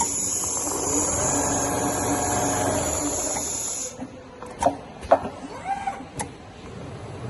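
CNC leather sewing machine running: a motor whine rises in pitch and then holds over a steady high hiss for about four seconds, then stops. After that come a few sharp clicks and short rising-and-falling motor whirs.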